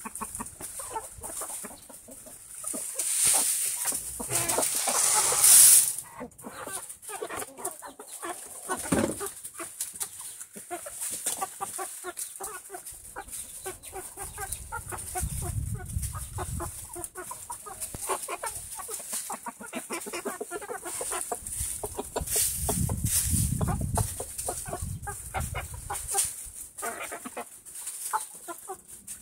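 A flock of young chickens clucking softly while they peck and scratch through loose wood chips, with many small ticks and rustles from the chips. A louder rush of noise comes a few seconds in, and low rumbles come twice later on.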